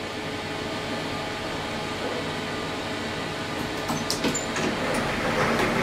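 Steady hum inside an elevator car standing at a floor, with a few sharp clicks about four seconds in. A broader rushing noise grows louder near the end.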